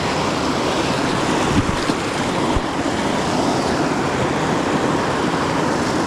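Steady rushing of creek water, with two faint low knocks about one and a half and two and a half seconds in.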